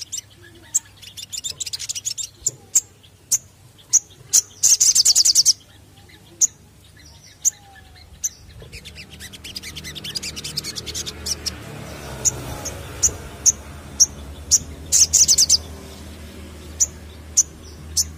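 Male olive-backed sunbird (sogon) calling: a string of sharp, high single chirps, broken twice by a fast buzzy trill, about five seconds in and again about fifteen seconds in. A faint low rumble swells behind it in the middle.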